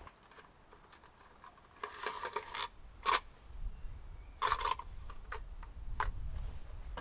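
Clicks and scrapes of hands changing the blade on a DeWalt 18 V cordless reciprocating saw, with short scraping rattles and a sharp click about three seconds in, then a few more clicks.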